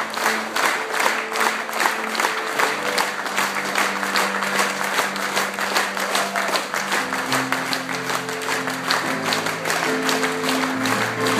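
Theatre audience applauding over music of slow, sustained held chords that change every few seconds.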